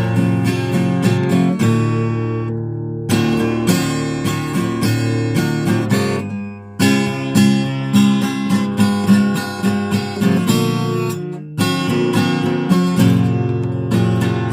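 Hohner acoustic guitar with fresh strings, strummed and picked in an improvised jam. The strumming pauses briefly a few times, letting chords ring, then picks up again.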